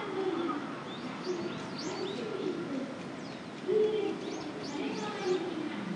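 Pigeons cooing in repeated low, rolling calls, one louder coo a little past halfway, with quick high chirps of small birds over them.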